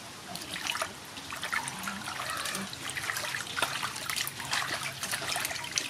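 Raw chicken wings being washed by hand in a metal basin of water: irregular splashing and trickling as the hands rub and turn the wings.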